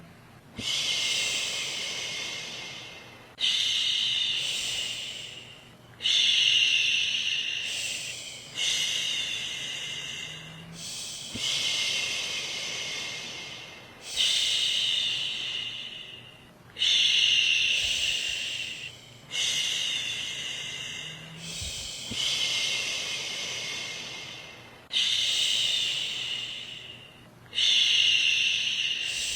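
A woman shushing a baby: long 'shhh' sounds repeated about every two and a half seconds, each starting strong and fading away.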